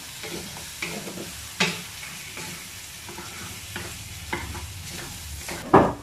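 Beef and tomato paste sizzling in a wok on a gas burner while a spatula stirs and scrapes through it, with scattered knocks against the pan. A louder knock comes near the end.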